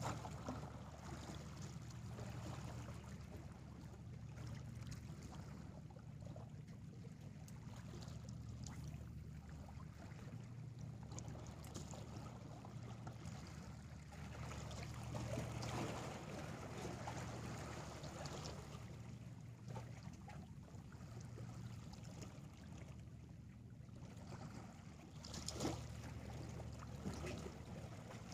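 Small sea waves lapping and washing against shoreline rocks, swelling slightly now and then, over a low steady rumble.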